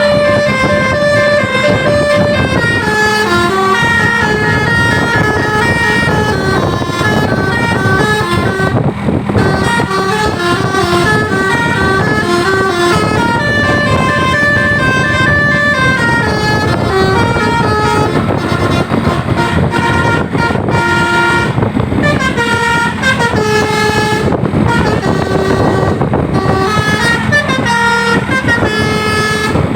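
Basuri 'telolet' musical bus horns playing stepped melodic tunes, several notes sounding at once and changing pitch every fraction of a second. They sound almost without a break over the noise of the road vehicles.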